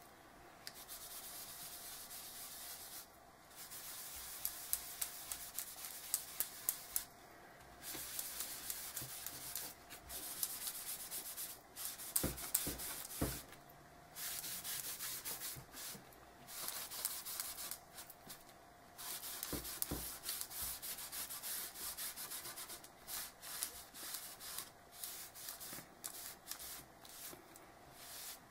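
Baby wipe rubbed back and forth over a chipboard board, blending Gelatos crayon colour into the background. It comes in runs of scrubbing strokes with short pauses between, and a few dull knocks come near the middle.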